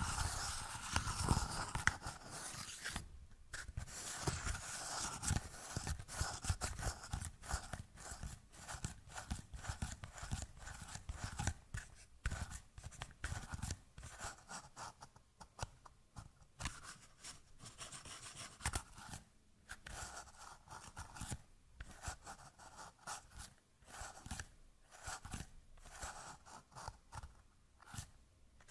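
Small nested plastic cups handled close to the microphone, fingertips tapping and scratching their rims: a steady run of irregular, crisp plastic clicks and scrapes.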